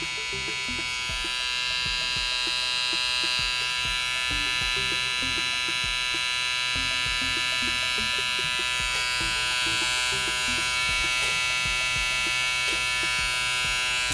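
Wahl 5 Star Detailer cordless T-blade trimmer running with its power cable plugged in: a steady, even-pitched electric buzz that grows slightly louder over the first couple of seconds. Running on the cable, it has more power than on battery alone. Right at the end the sound briefly dips and changes.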